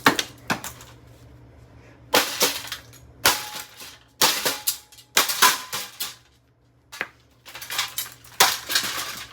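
Plastic parts of an AeroSpeed BX100 box fan being smashed and snapped apart: a string of sharp cracks and crunches in bursts, with a brief quiet gap about two-thirds of the way through.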